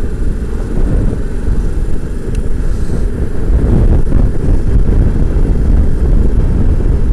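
Wind buffeting the microphone on a moving motorcycle in a strong wind: a loud, steady low rumble that gets a little louder about four seconds in.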